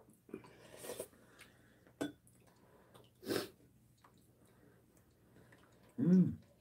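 People eating clam sujebi (hand-torn dough soup) with metal spoons from ceramic bowls: short slurps and chewing, and a spoon clicking on a bowl about two seconds in. Near the end comes a brief voiced sound, the loudest moment.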